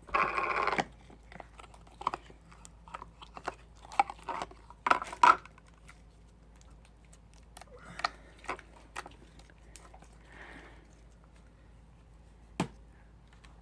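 Foam-bead slime being squished and worked by hand, giving irregular crackly squelches and pops, with a louder burst at the start and a sharp click near the end.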